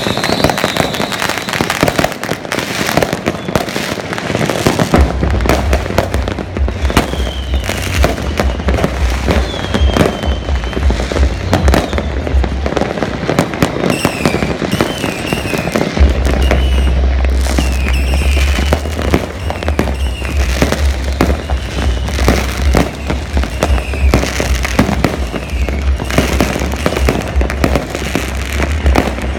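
Many fireworks going off at once across a city: a continuous din of overlapping bangs, pops and crackles, with a new report every fraction of a second.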